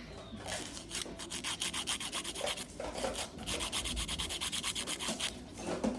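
A fingernail being filed, a quick run of dry, scratchy rasping strokes against the nail.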